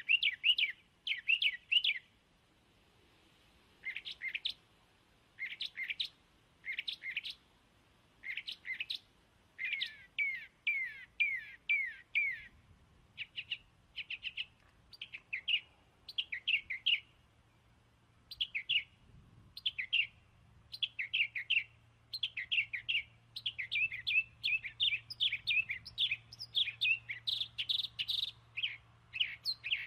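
A bird chirping in quick runs of short, falling notes, with brief pauses between runs that grow shorter and busier towards the end.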